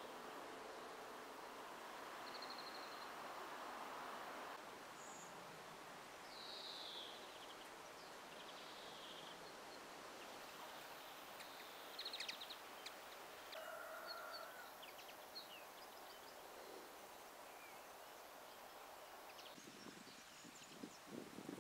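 Faint outdoor ambience: a steady light hiss with scattered short bird chirps, and a few soft clicks about halfway through.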